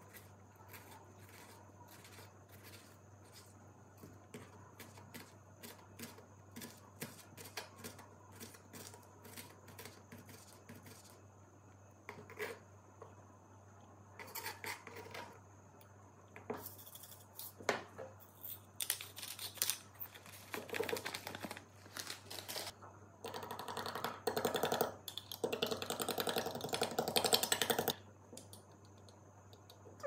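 A kitchen knife cuts a red onion on a wooden cutting board: a long run of quick, light taps. Then comes a scattering of louder knocks as the pieces are scraped into a glass. Near the end a metal utensil beats egg whites in a glass, a fast, loud run of clinks that stops suddenly.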